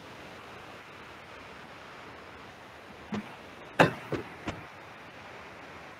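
A few short clicks and knocks over a steady low hiss: one about three seconds in, a louder one a little later, then two lighter ones close behind.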